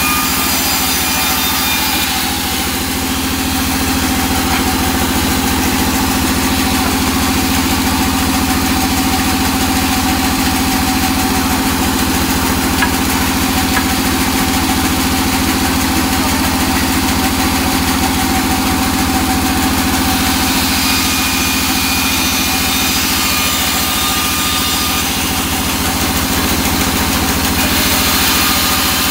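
Large band saw running with a steady motor hum, its blade hissing through a thin teak board at the start, again about two-thirds through, and near the end.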